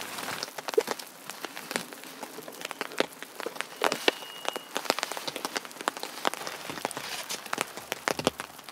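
Steady rain falling in a snowy forest, with many sharp, scattered drop hits close by.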